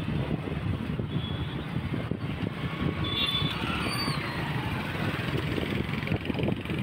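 Traffic noise from motorbikes and cars heard while moving along the road, with wind buffeting the microphone as a fluttering low rumble. A few brief high tones, like distant horns, come about three to four seconds in.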